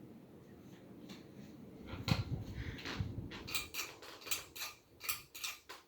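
42-inch SMC Park Avenue ceiling fan running with a low hum. About two seconds in comes a knock, and it is followed by a run of sharp mechanical clicks and rattles, about four a second.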